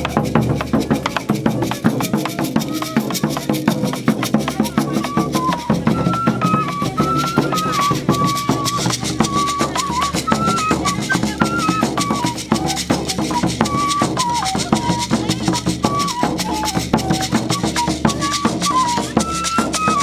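Brazilian folk drum-and-fife ensemble playing: alfaia drums struck with sticks, a hand drum and a metal tube shaker keep a dense steady beat, and a wooden pífano fife comes in with a melody about three seconds in.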